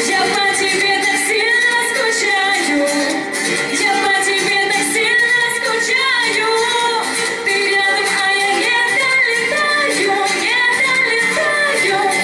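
A woman singing a pop song live into a handheld microphone, with an amplified accompaniment keeping a steady beat.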